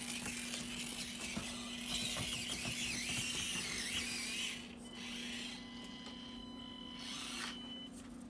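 Axial SCX24 Deadbolt 1/24-scale RC crawler driving: its small electric motor and gear drivetrain whirring, rising and falling with the throttle, with light clicks and knocks as it climbs the obstacles. It gets quieter about halfway through.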